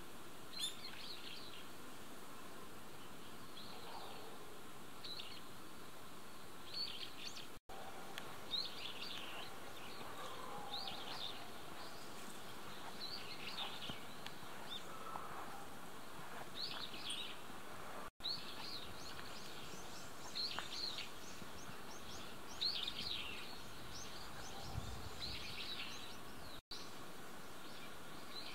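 Small birds chirping in short, high calls every second or two over a steady outdoor background hiss. The sound cuts out to silence for an instant three times.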